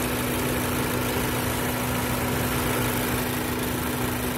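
A 2014 Ford Focus's four-cylinder engine idling steadily with a constant hum, while its evaporative purge valve hose is disconnected for a vacuum-leak test.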